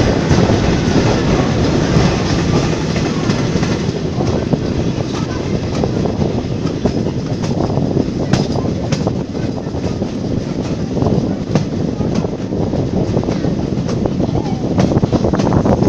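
Heritage passenger train running along the track, heard from an open carriage window: a continuous loud rumble of wheels and coaches, with irregular clicks of the wheels over rail joints.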